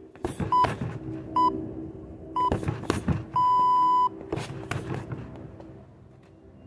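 Electronic round timer beeping three short beeps about a second apart and then one long beep, the countdown that marks the end of a round. Between the beeps come several sharp thuds of kicks landing on a standing punching bag.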